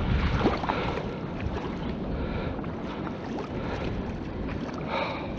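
Water sloshing and splashing, with wind noise on the microphone.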